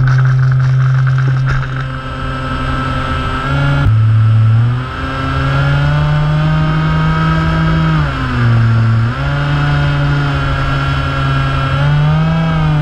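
Small FPV model plane's motor and propeller whining steadily, the pitch dropping and climbing back several times as the throttle changes. The pitch jumps abruptly about four seconds in.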